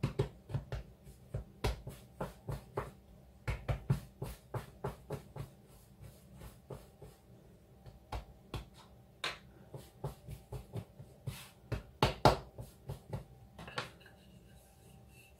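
Hands gathering and pressing scone dough together on a floured worktop: irregular soft taps and thumps, the loudest about twelve seconds in. Near the end the dough is rolled with a wooden rolling pin.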